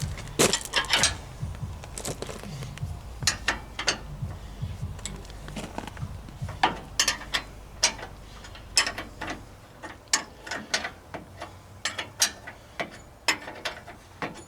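Irregular sharp metallic clicks and clinks from hand tools working on metal parts of a skid steer, some coming in quick small clusters. A low hum underneath stops about two-thirds of the way through.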